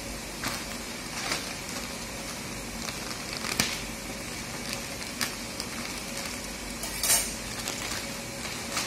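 Plastic courier mailer bag being opened by hand: crinkling and rustling of the plastic, with scattered sharp crackles, the loudest about three and a half seconds in and again around seven seconds in.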